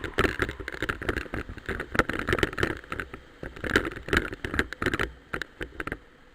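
Mountain bike clattering and rattling over rough trail, a dense run of irregular knocks and clicks that grows quieter near the end.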